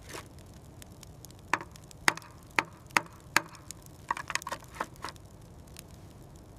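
A series of sharp crunching clicks: about five at roughly half-second intervals, then a quicker cluster, over a faint low background.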